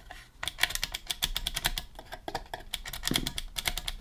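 Rapid, irregular run of light clicks and taps from small hard objects being handled.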